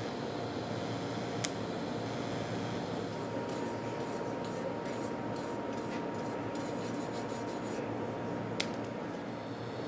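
Steady background noise of a large fabrication shop, with a faint steady tone coming in about three seconds in and two sharp clicks, one early and one near the end.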